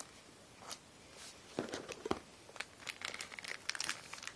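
Pokémon booster pack wrapper being torn open and crinkled by hand: a run of short, sharp crackles and rustles, thickest from about a second and a half in.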